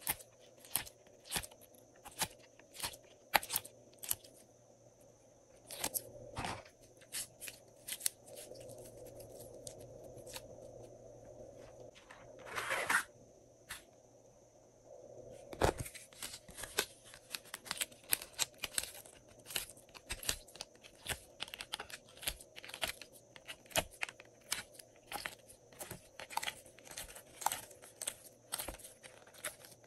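Glossy slime being peeled and squeezed out of plastic moulds: sharp sticky clicks and crackles, with crinkling of the thin plastic tray. The clicks come singly at first and turn quick and dense in the second half, with a louder rustle a little before the middle.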